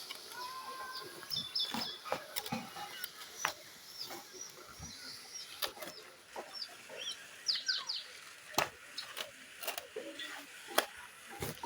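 Small birds chirping: short high chirps scattered throughout, with a quick run of chirps about seven and a half seconds in. Several sharp clicks and knocks sound among them.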